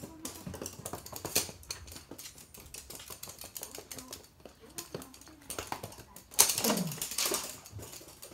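Toy poodles' claws clicking on a hard laminate floor as they run about, an uneven patter of many small taps. About six and a half seconds in, a short, louder sound slides down in pitch.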